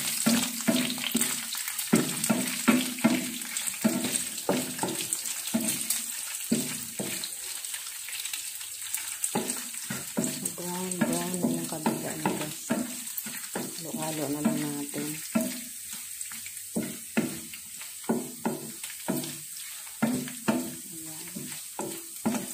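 Diced pork sizzling in hot oil in a nonstick frying pan, with a wooden spatula scraping and knocking against the pan again and again as the pieces are stirred.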